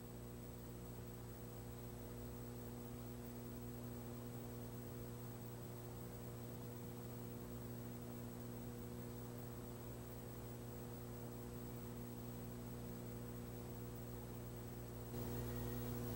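Low, steady electrical mains hum with a faint hiss over it; the hiss grows slightly louder near the end.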